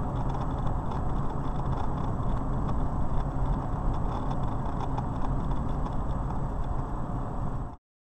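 Steady engine and tyre noise of a car cruising on a highway, heard from inside the car. It cuts off abruptly near the end.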